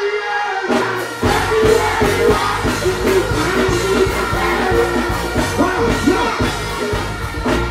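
Live dancehall performance through a PA system: a deejay vocalising into a microphone over a loud backing track with a steady beat.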